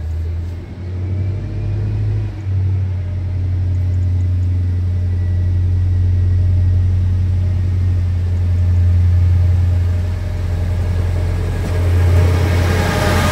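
Trenitalia Minuetto diesel multiple unit running slowly into the station: a steady low diesel rumble that grows as it nears, with a rushing hiss swelling near the end as the train draws alongside.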